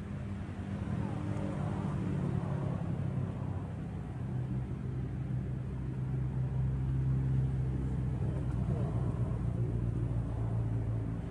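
A motor vehicle's engine running steadily with a low drone, growing louder about four seconds in.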